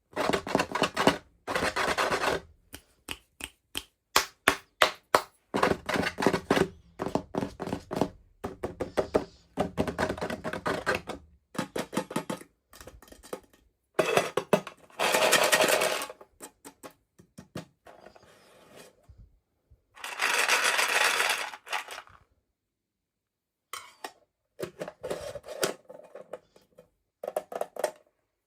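Toy packaging being handled and opened by hand: a rapid, irregular run of plastic clicks and taps, with a few longer rustling or tearing stretches of a second or two.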